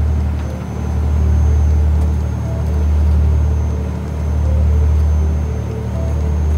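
Boat engine running steadily: a loud, low drone that swells and fades about every two seconds.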